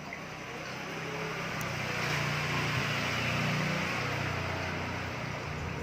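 A motor vehicle passing by: a steady engine hum and tyre noise that grow louder to a peak about halfway through, then fade.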